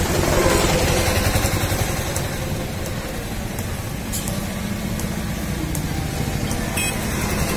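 A motor engine running steadily with a low rumble.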